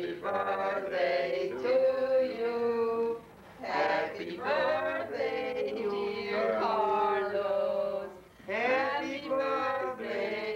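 A song with singing voices, the notes held and gliding.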